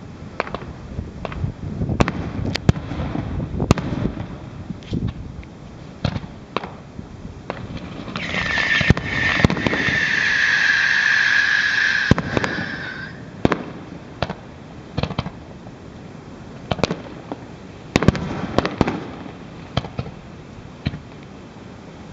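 Aerial fireworks going off: a run of sharp bangs and pops throughout, and about eight seconds in a loud hissing whistle that lasts about four seconds, falling slightly in pitch before it cuts off.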